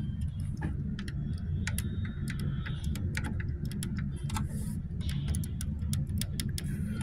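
Camera handling noise: light, irregular clicks and ticks, several a second, over a steady low hum as the camera is moved about.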